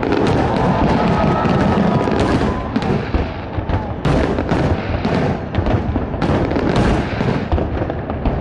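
Fireworks display bursting in rapid succession: a dense, continuous barrage of bangs and crackles with no pause.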